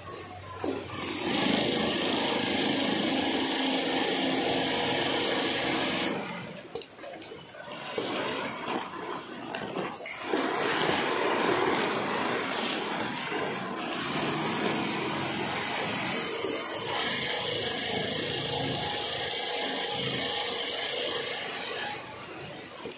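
HighTex 53800 long-arm baffle sewing machine running at steady speed while stitching FIBC bulk-bag fabric, in two long runs: from about a second in to about six seconds, then from about fourteen seconds until near the end. Between the runs there is quieter, uneven noise.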